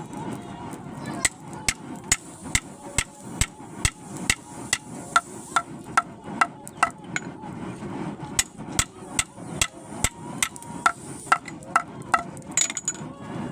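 Blacksmith's hammer striking metal on an anvil in a steady rhythm, about two and a half blows a second, each with a short ring, with a brief pause a little past the middle. A steady low rumble runs underneath.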